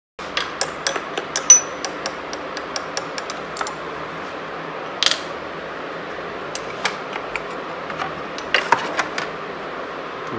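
Open-ended steel spanner working a nut on the motorcycle's battery hold-down plate: a quick run of sharp metallic clicks over the first few seconds, then scattered clicks, over a steady hiss.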